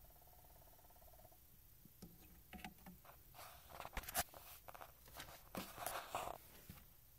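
Record player making faint odd noises: a steady whine that stops about a second and a half in, then irregular clicks and short scraping rubs for several seconds.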